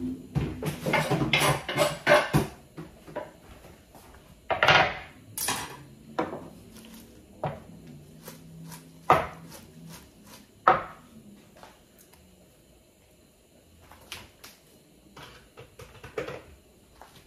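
Kitchen clatter of dishes and utensils being handled: a quick run of clinks and knocks in the first couple of seconds, then separate louder knocks around five, nine and eleven seconds, and a few light taps near the end.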